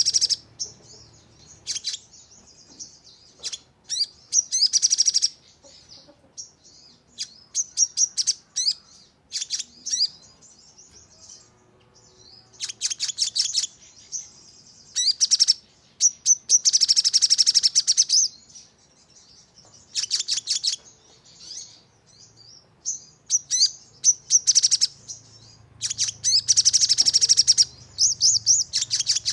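A sogon songbird calling in bursts of sharp, high-pitched chirps and fast rapid-fire trills, with short pauses between the bursts: the aggressive 'nembak' song that keepers use to provoke other birds to sing.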